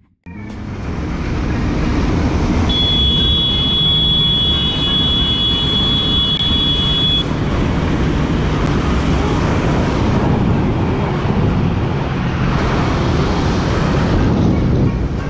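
Motorcycle on the move, heard through an on-board camera: a steady rush of wind and engine rumble that cuts in after a brief silent gap. A thin high whistle sounds over it for about four seconds, starting about three seconds in.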